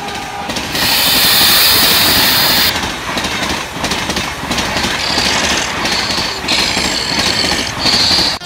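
Steam locomotive approaching. A loud hiss of steam lasts a couple of seconds from about a second in, then the engine runs on with an uneven, noisy beat.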